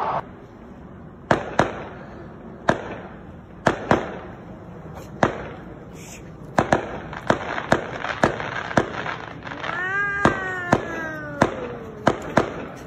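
A fireworks display: aerial shells bursting in a dozen or more sharp bangs at uneven intervals. About ten seconds in, a drawn-out tone slides downward for over a second.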